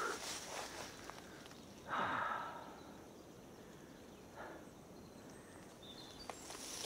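A person breathing out heavily twice, once about two seconds in and again more weakly past four seconds, over a faint outdoor hiss.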